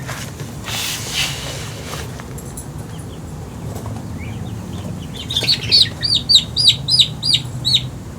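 A bird chirping: a quick run of about ten loud, high, repeated chirps, about three a second, in the second half. There is some rustling in the first couple of seconds.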